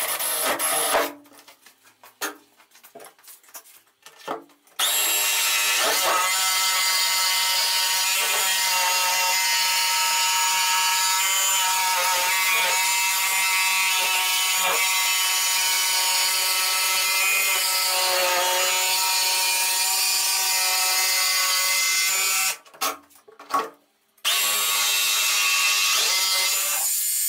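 A cordless drill briefly bores a starter hole through the chipboard skin of a hollow honeycomb-core door. A few seconds later a Makita 18 V cordless jigsaw starts cutting out a square opening and runs steadily. Near the end it stops for a moment, then cuts on.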